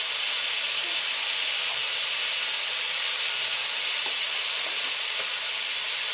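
Chopped vegetables sizzling steadily in hot oil in a kadai, with a few faint pops.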